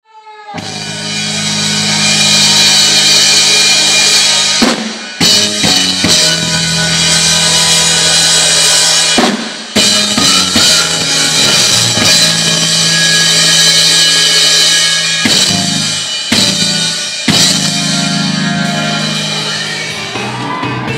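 Gospel church band playing: long held keyboard chords over a drum kit with cymbals, broken by several hard drum strokes and short stops. It fades in at the start.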